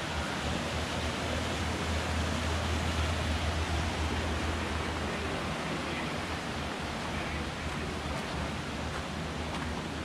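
Small rocky creek running over stones: a steady hiss of rushing water, with a low rumble underneath that is strongest in the first half.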